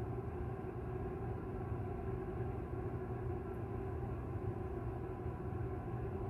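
Steady low hum and rumble of room background noise, with a few faint steady tones riding on it.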